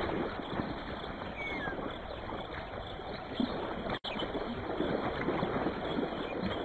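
Water splashing and sloshing as a spotted hyena and African wild dogs tear at a kudu carcass in shallow water. A faint short chirp comes about a second and a half in, and the sound breaks for an instant about four seconds in.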